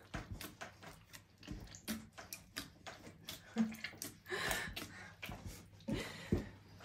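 Hands kneading a large batch of soft, butter-rich yeast dough in a big enamel pot: an irregular run of wet squelches and slaps, with a longer squelching rustle about four and a half seconds in.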